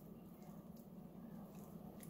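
Near silence: faint room tone with a low, steady hum.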